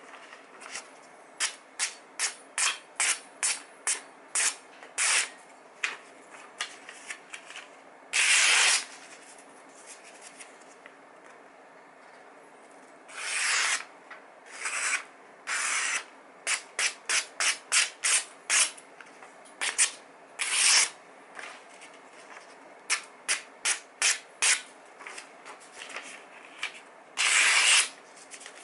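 Freshly sharpened kitchen knife slicing through sheets of glossy catalogue paper, a sharpness test: runs of short crisp cuts about two a second, broken by four longer slices.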